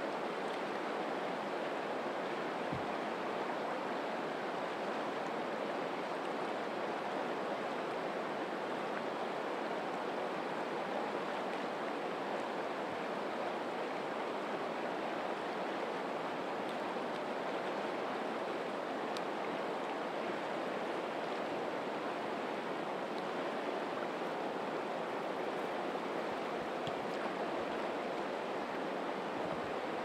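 Fast-flowing river current rushing steadily over a stony bed.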